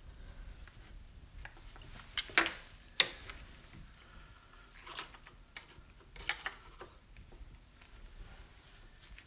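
Irregular clicks and knocks of a rubber coolant hose and its plastic quick-disconnect being wiggled back and forth on the thermostat to work it loose. The loudest knocks come about two and three seconds in.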